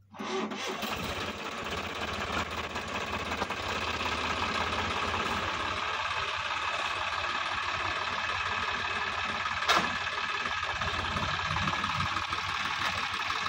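Sonalika DI 50 RX tractor's diesel engine running steadily under load as the tractor drives into a flooded, muddy paddy field. One sharp knock sounds about ten seconds in.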